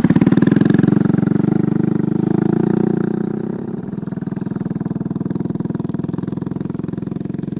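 Small motorcycle engine running as the bike pulls away and rides off. The engine sound drops to a lower, steady level about halfway through.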